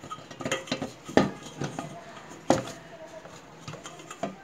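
Stainless-steel top plate of a household flour mill clattering as it is handled and fitted into place: a run of light metal clicks and scrapes, with two sharper knocks that ring briefly.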